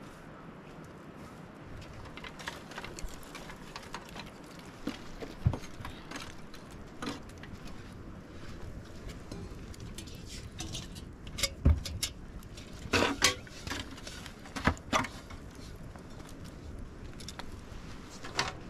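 Irregular knocks and clinks of objects being handled, with a denser run of sharper ones past the middle, over a faint steady background.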